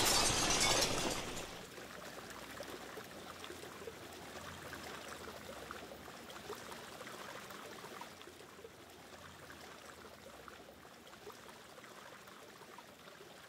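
Boiling water and spaghetti gushing out of a glass pot whose bottom has broken away: a loud splash in the first second or so, dying down to a faint steady trickle of water running off onto the floor.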